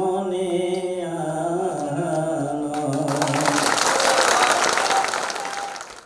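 A man singing a long held closing note of a Bengali song into a stage microphone, the pitch stepping down partway through. About three seconds in, audience applause breaks out over the end of the note, and everything fades out near the end.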